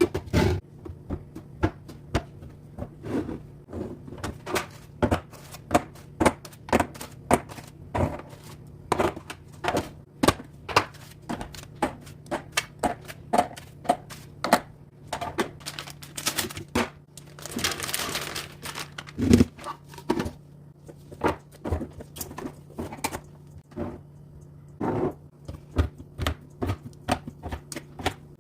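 Items being set down and arranged by hand: a long run of irregular sharp clicks and light knocks of containers against hard surfaces, with a brief rustle about eighteen seconds in and a faint steady low hum underneath.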